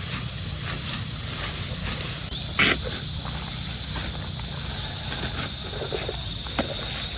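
Steady high-pitched insect drone, with wind buffeting the microphone as a low rumble. A single sharp knock comes about two and a half seconds in.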